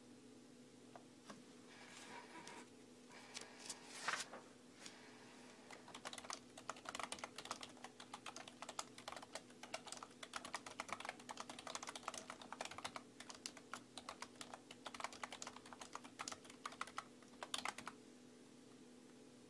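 Typing on a desktop computer keyboard: a few scattered keystrokes at first, then a fast, continuous run of key clicks from about six seconds in, stopping near the end. A steady faint hum lies underneath.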